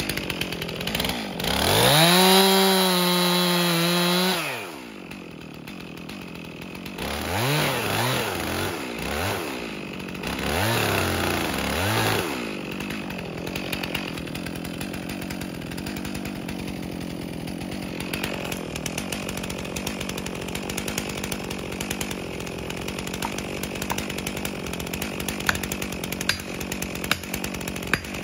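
Two-stroke chainsaw felling a dead spruce. It runs at full throttle for about three seconds, drops back, and is blipped up and down several times. It then idles steadily.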